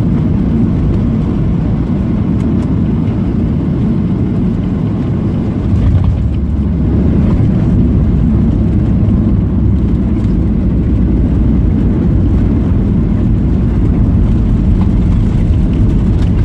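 Boeing 737 cabin noise during landing: a loud, steady low rumble of engines and rushing air that swells about six seconds in.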